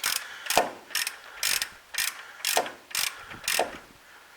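A half-inch drive ratchet with an extension and 24 mm deep socket clicking through quick back-and-forth strokes, about eight bursts of clicks half a second apart, as it backs out an engine oil pressure switch.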